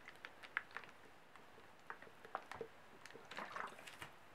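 Sunflower oil poured from a plastic bottle over onions and fish in a plastic container: faint liquid pouring with scattered small clicks, and a short busier cluster of clicks and rustles near the end.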